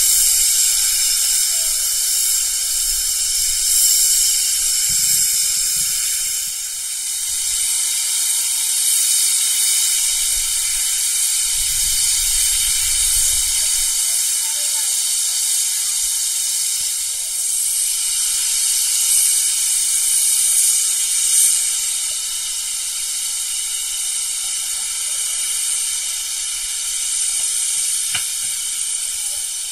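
Steady hiss of steam from the small tank locomotive No. 2138 'Swordfish'.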